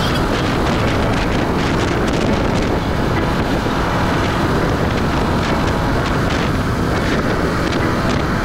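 Subaru BRZ driving at speed on an expressway: a steady rush of tyre and wind noise.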